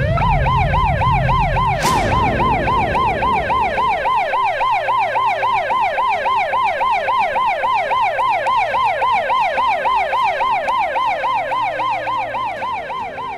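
Emergency-vehicle siren in a fast yelp, its pitch sweeping up and down about four times a second and fading out near the end. A low rumble and a sharp hit sound under it in the first two seconds.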